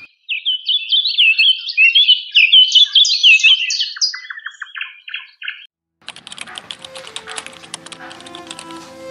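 A songbird singing a fast run of chirping, whistled notes for about five seconds, ending in a quick series of short clipped notes. Background music with plucked and held notes starts about six seconds in.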